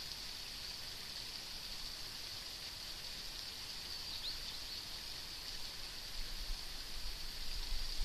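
Steady outdoor hiss with no clear source, with one faint short chirp about four seconds in. Irregular low rumbles of wind on the microphone come in during the second half.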